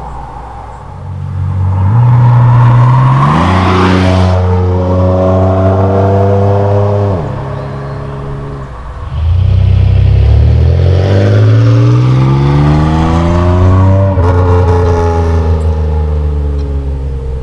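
A 1997 Camaro's 3.8L V6 exhaust, fitted with an aftermarket Cherry Bomb performance muffler, under hard acceleration. The engine note climbs, falls back sharply about halfway through, then climbs steadily again and drops once more near the end.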